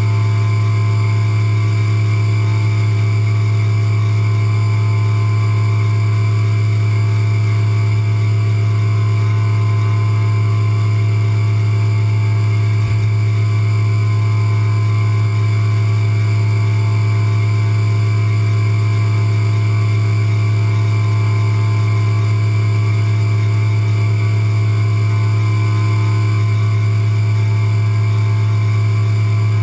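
CNC vertical milling machine running, its spindle driving a small tool that engraves into the top of a metal part: a loud, unbroken low hum with a steady high whine over it.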